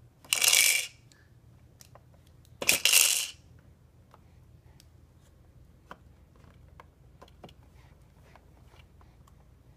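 Twice, a clear plastic bead-filled roller rattle on a baby's exersaucer tray is spun, its beads clattering for about half a second each time; faint small clicks of toys being handled follow.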